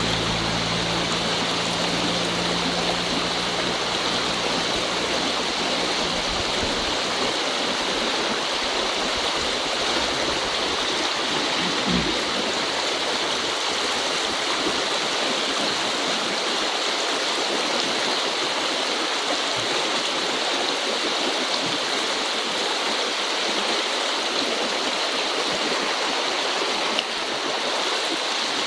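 Flowing river current: a steady rush of water.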